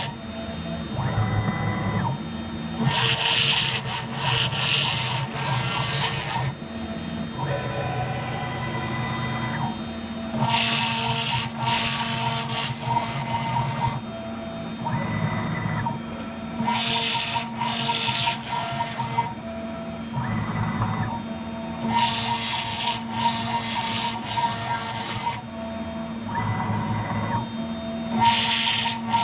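Small CNC milling machine cutting face-plate blanks: loud, high-pitched cutting bursts of two to three seconds repeat about every six seconds as the cutter makes its passes. Between the bursts the machine's motors run with a steady hum and whine.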